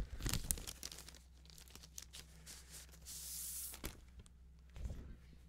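Clear plastic sleeve crinkling and crackling as an art print is slid out of it, with a short sliding hiss about three seconds in and a few light taps of the sleeve.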